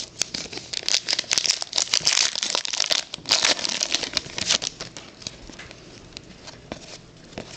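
Trading cards being flipped through and handled by hand: a quick run of papery rustles and snaps, thinning out after about five seconds.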